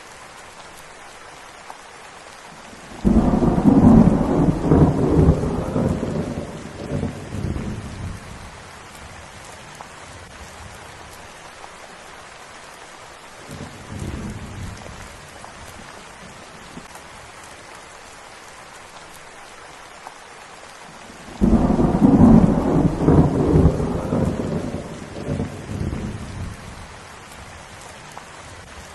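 Steady rain falling, with thunder: a loud rumble starts suddenly about three seconds in and fades over several seconds, a fainter short rumble comes near the middle, and another loud rumble comes about two-thirds of the way through.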